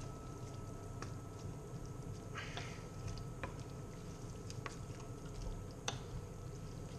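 Two wooden spatulas stirring and tossing noodles in a pan of vegetables and broth: soft wet squishing with a few light clicks of wood against the pan. Underneath runs a low steady hum with a faint steady high whine.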